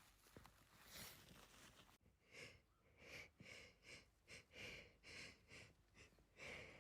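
Faint, quick breathy sniffs and catching breaths through the nose, about two a second, as a sneeze builds up.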